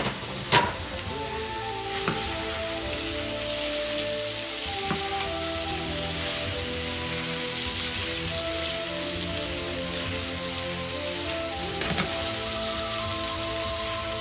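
Pork and onions sizzling steadily in a non-stick frying pan over low heat, with a few sharp clicks of nylon tongs against the pan near the start and once more near the end as the meat is tossed. Soft background music with held notes plays underneath.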